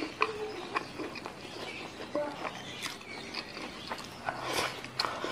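Close-miked eating by hand: fingers gathering and pressing rice on a banana leaf, then wet mouth clicks and chewing as a handful goes into the mouth near the end.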